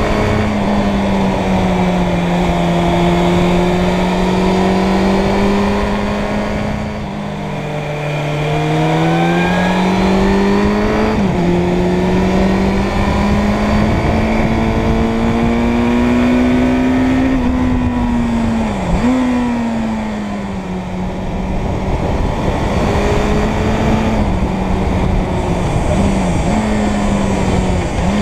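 Suzuki Bandit 600's inline-four engine running under way, its pitch rising and falling with the throttle and dipping sharply for a moment at each gear change. It eases off twice, about seven and about twenty seconds in.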